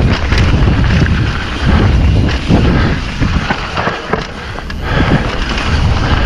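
Mountain bike descending a rough dirt trail: wind buffeting the camera microphone over tyre rumble and the clatter and rattle of the bike over bumps. It eases off briefly about four seconds in.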